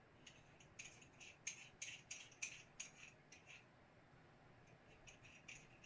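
Faint, irregular light clicks and taps of small airgun thread adapters being handled and sorted, a quick run of them in the first few seconds and a few more near the end.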